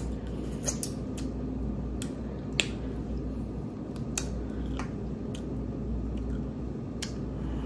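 Sparse sharp clicks and small wet squishes of a sauce-covered corn cob being handled close to the microphone, over a steady low hum.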